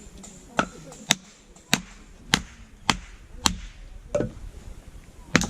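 Firewood being split with eight sharp strikes in a fairly even rhythm, nearly two a second; the last strike is the loudest.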